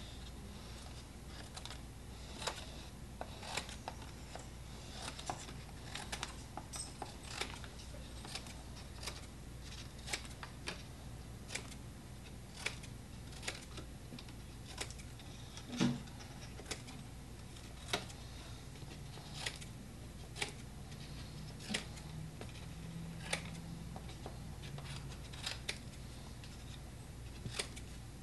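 Irregular sharp light taps and clicks, about one or two a second, from work at a small table over a steady low hum.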